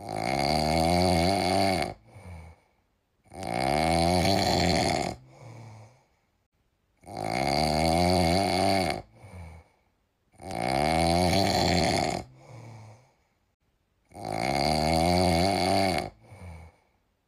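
Loud snoring: five long snores, about one every three and a half seconds, each followed by a short softer one, with dead silence between them. The pattern repeats almost identically each time.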